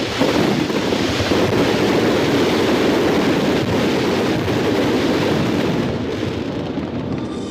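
Large crowd cheering and applauding, a dense roar of claps and voices that eases off near the end.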